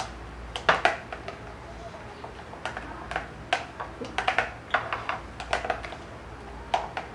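Irregular light clicks and taps of spoons against a glass mixing bowl and small containers as a chopped tomato filling is stirred and seasoning is scooped.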